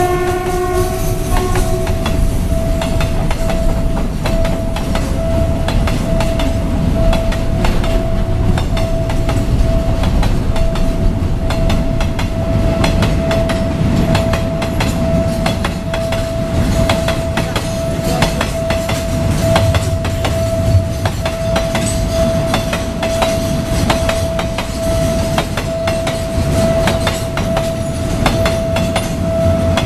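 Freight wagons of a long goods train rolling past, first container flats then tank cars, with a continuous rumble and wheels clattering over rail joints. A level-crossing warning bell rings steadily with an even pulse throughout. A pitched horn-like note fades out in the first second or two.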